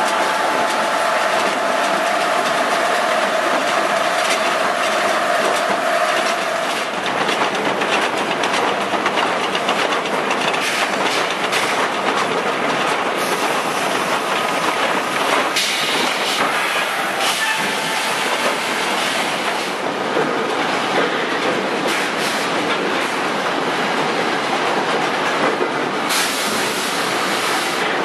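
Sawmill log-handling machinery running: chain conveyors and log decks carrying logs with a continuous metallic clanking and rattling. A steady whine sits over the clatter for the first six seconds or so.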